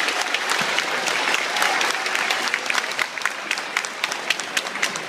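Audience applauding, many hands clapping at once, thinning a little near the end.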